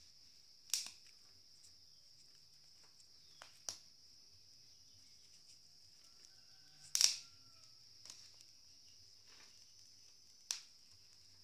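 Maize cobs roasting on a wire grill over glowing charcoal: four sharp pops spaced about three seconds apart, with a few fainter ticks between them, over a steady high-pitched hiss.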